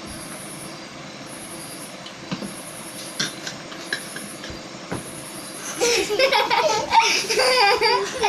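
Steady low background noise with a few light clicks, then from about six seconds in a child's loud, high-pitched voice with laughter.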